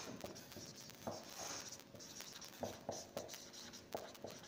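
Marker pen writing on a whiteboard: faint, short separate strokes as the words are written.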